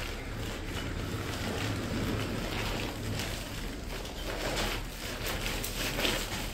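Rustling and crinkling of a laminated plastic sack being handled and folded, in irregular scratchy bursts.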